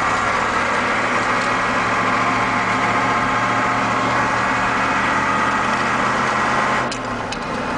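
Caterpillar V8 diesel of a Ford F800 truck running steadily, heard from inside the cab. About seven seconds in the engine note drops and the gear lever gives two clicks.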